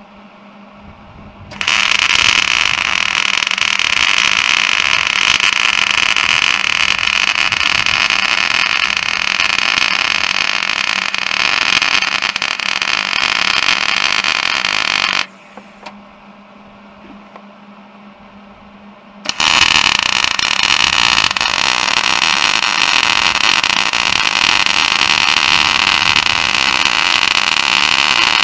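Wire-feed welder arc running steadily with a dense hiss as a bead is laid along a steel snowmobile ski to build up a new wear rod. The arc starts about two seconds in and breaks off for about four seconds after the middle. It then strikes again and keeps running.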